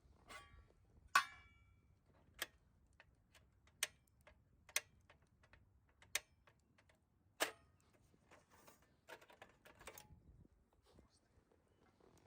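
Irregular sharp clicks and light knocks, roughly one a second, the loudest about a second in with a brief metallic ring after it.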